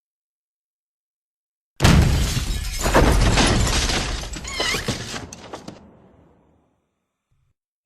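Cartoon crash sound effect: a sudden loud smash about two seconds in, then a few seconds of shattering, clattering debris, like breaking glass, that dies away.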